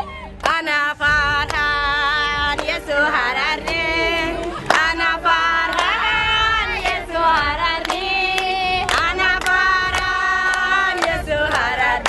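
A group of women singing together, holding long wavering notes, with hand claps.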